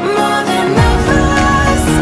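Background music: an electronic pop track, with a deep bass that comes in just under a second in.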